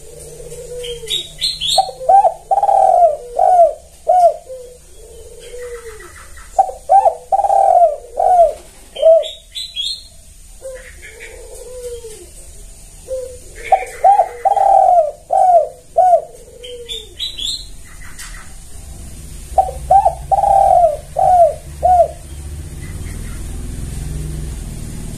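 Spotted dove (tekukur) cooing: four phrases about five to six seconds apart, each a quick run of short coos. Short high chirps come between phrases, and a low rumble rises near the end.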